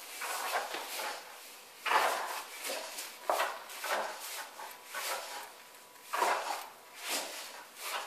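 A Malinois tugging and shaking a towel on a tile floor: irregular scuffling and rustling bursts, about one a second, from its paws on the tiles and the jerked cloth.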